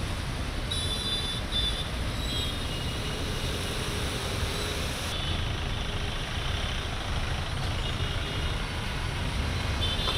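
City road traffic: a steady rush of engines and tyres, with a few short high-pitched beeps about a second in, again near the middle and at the end.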